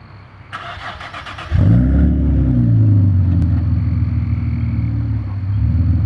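2009 Nissan 370Z's 3.7-litre V6, fitted with long-tube headers and a non-resonated catback exhaust with carbon fibre mufflers, being started. The starter cranks for about a second, the engine catches with a loud flare of revs, and the pitch falls into a steady idle.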